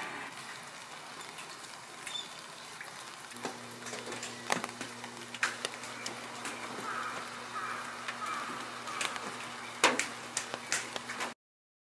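Quiet wet outdoor ambience: scattered sharp drips and ticks of rainwater, with a low steady hum that comes in a few seconds in and faint chirps in the middle. The sound cuts off abruptly near the end.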